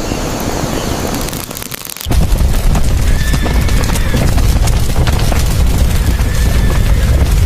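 A hissing noise, then a loud, low rumble that starts suddenly about two seconds in and keeps going.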